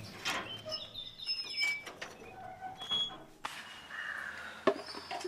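Birds chirping and calling, with crows cawing, in short high calls that thin out after about three seconds; a sharp knock sounds near the end.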